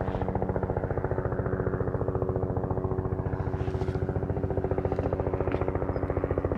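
Helicopter flying nearby, its rotor blades chopping in a steady, rapid, even beat.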